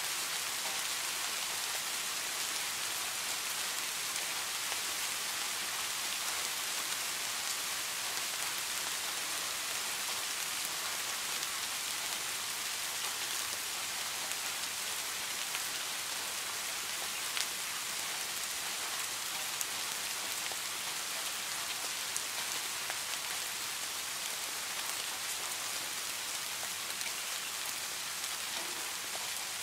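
Steady rain, an even hiss, with a few sharper drops ticking now and then.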